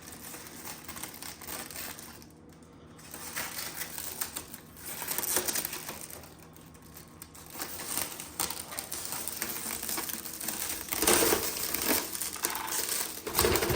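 Thin plastic protective film being peeled off an RC car body, crackling and crinkling in uneven spells, loudest about eleven seconds in.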